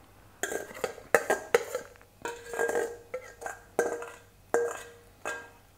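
Spoon knocking and scraping salad out of a hammered stainless-steel mixing bowl, the bowl ringing briefly with each knock; about a dozen irregular strikes.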